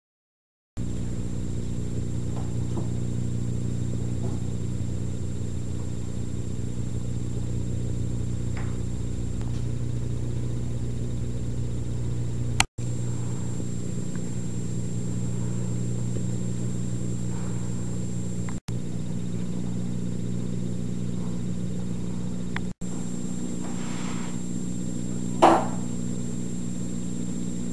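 A steady low hum with a few faint soft knocks. Near the end comes one short, louder sound.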